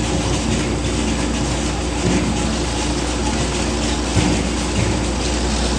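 Exeter Engineering AccuVision 360 potato grader running. Its roller conveyor gives a steady mechanical hum and rattle, with a few short knocks from potatoes rolling along the rollers.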